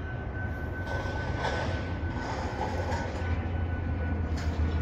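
Steady low outdoor rumble with a faint, thin high whine running through it.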